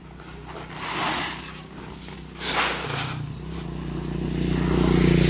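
Fertilizer granules swishing and scraping as they are scooped and shuffled on a tarp, twice in the first half. From about three seconds in, an engine hum comes in and grows steadily louder toward the end, becoming the loudest sound.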